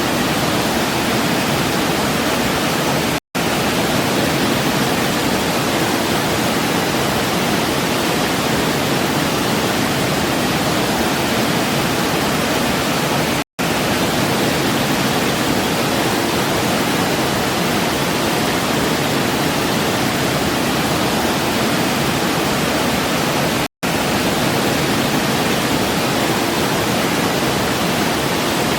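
Waterfall rushing in a steady, even roar of water, with three very short drops to silence about ten seconds apart.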